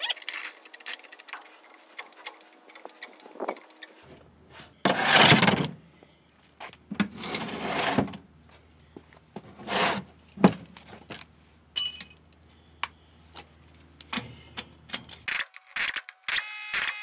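Metal tools clinking and knocking as they are handled, with a few short rushing bursts. Near the end a pneumatic impact wrench starts rattling on the wheel's lug nuts to take the wheel off.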